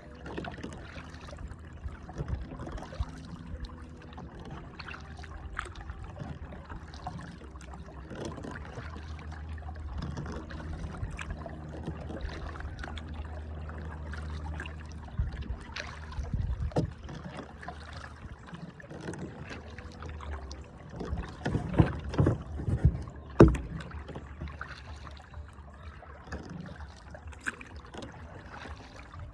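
Kayak being paddled on a river: paddle strokes and water splashing and dripping over a steady low rumble, with a cluster of louder knocks and splashes about three-quarters of the way through.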